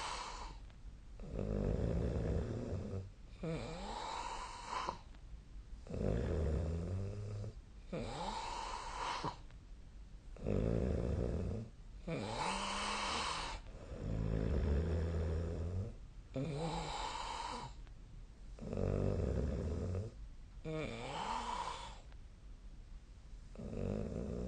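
A person snoring in sleep. A deep snore alternates with a breathier, hissing breath, the cycle repeating roughly every four seconds.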